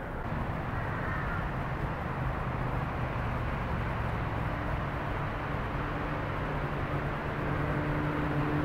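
Steady rumble of city traffic, with an engine hum growing a little louder near the end.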